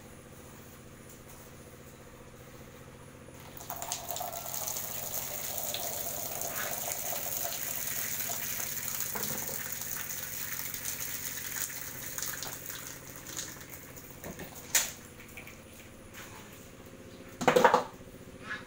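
A cow urinating onto a concrete floor: a steady splashing stream starts about three and a half seconds in, runs for several seconds and tapers off. Later comes a sharp knock, then a louder brief clatter near the end.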